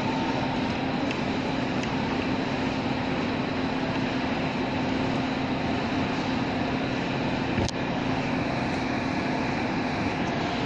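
Steady background hum of running machinery with a low steady tone, unchanging throughout; one faint click about three-quarters of the way through.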